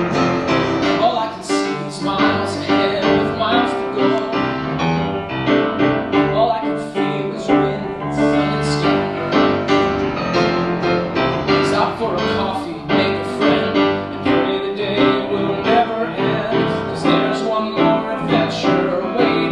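A man singing a musical-theatre song live into a microphone, with piano accompaniment.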